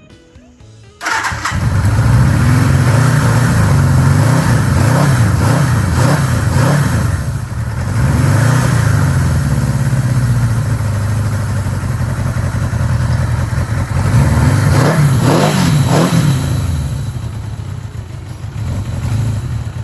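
1982 Suzuki GS850's air-cooled inline-four engine catching about a second in, then running with the throttle blipped up and down a few times.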